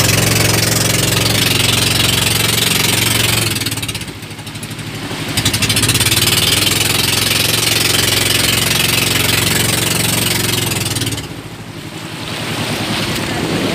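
Outrigger boat's engine running steadily under way, with a loud hiss of wind and spray over it. The sound dips briefly about four seconds in. In the last couple of seconds the engine falls away, leaving mostly wind and water noise.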